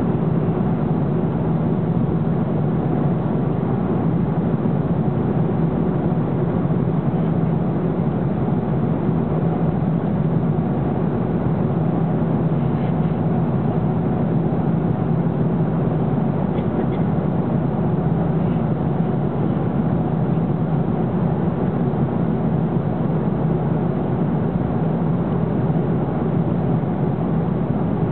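Steady cabin noise of a jet airliner in cruise: a constant rush of engines and airflow with a low hum underneath, unchanging throughout.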